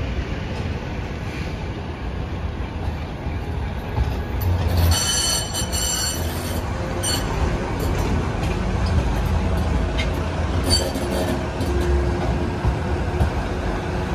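Bombardier M5000 light-rail tram rolling slowly round a tight curve in street track, with a steady low rumble. Its wheels squeal against the rails on the bend: a high ringing squeal about five seconds in lasting under two seconds, and a shorter one near eleven seconds.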